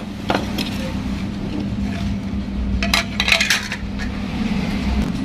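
Sharp clinks and knocks of a spoon and stone pestle against a clay mortar and the countertop while red chillies are tipped into the mortar, with a cluster of clinks about three seconds in. A steady low hum runs underneath.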